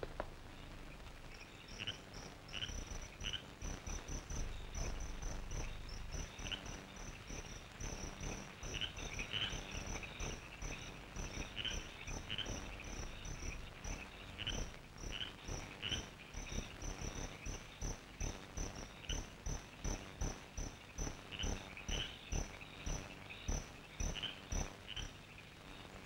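Crickets and other night insects chirping, an even run of short high chirps a few times a second with scattered lower chirps among them.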